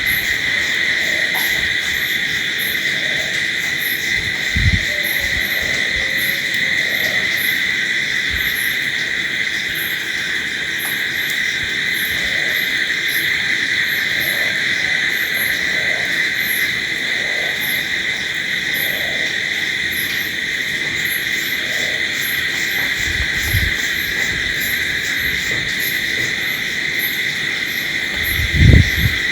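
Crickets trilling steadily in a night chorus, with a faster, very high pulsing chirp running over it. A few short low thumps break in, the loudest near the end.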